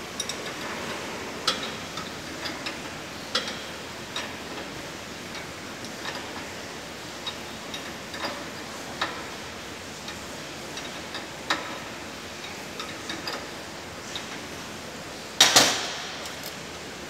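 Light metallic clicks and taps of hand tools working on escalator chain and roller parts, scattered irregularly over a steady background hiss. Near the end comes a louder double metal clank with a brief ring.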